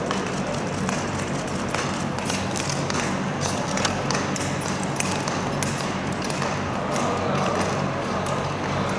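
Indoor speed skating oval ambience: a steady low hum under a haze of hall noise, with scattered light clicks and taps throughout.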